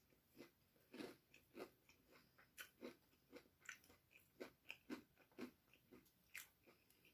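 A person chewing and biting a mouthful of fish, heard close up as a quiet run of short, irregular mouth clicks, about two or three a second.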